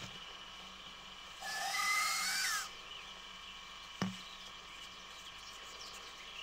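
Common adder hissing once for just over a second, about a second and a half in, a breathy hiss with a faint whistle-like edge. A single short knock follows about four seconds in.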